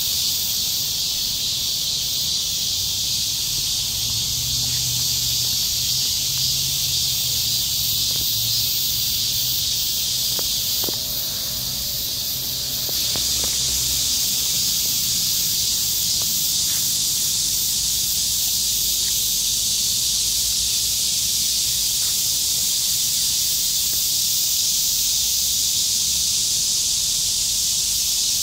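Steady, high-pitched chorus of insects, a dense continuous hiss, thinning briefly about eleven seconds in.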